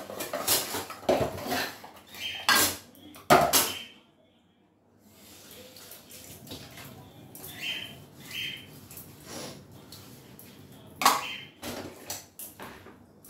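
Steel and plastic utensils clattering and clinking as they are scrubbed and set down by hand in a kitchen sink. From about five seconds in, water runs from the tap under the clinks, and there is another loud clatter near the end.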